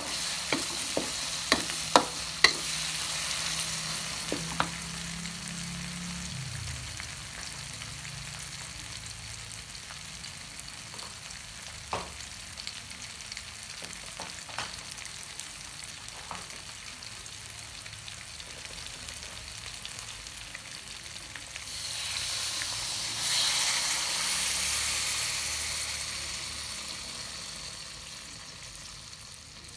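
Spice paste sizzling as it fries in a metal wok, with the metal spatula clicking and scraping against the pan several times in the first few seconds. Past the middle the sizzle swells for a few seconds and then dies down as coconut milk is poured into the hot paste.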